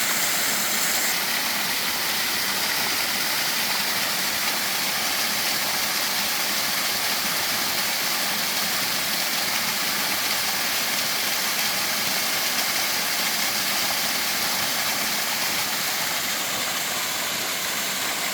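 Mountain valley stream rushing in a steady, unbroken hiss of water.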